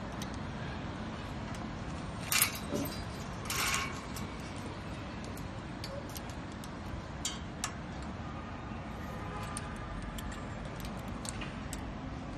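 Wire clothes hangers clinking and jingling against the metal rings of a stainless steel laundry pole, loudest in two bursts about two and a half and nearly four seconds in, with a few lighter ticks later, over a steady background hiss.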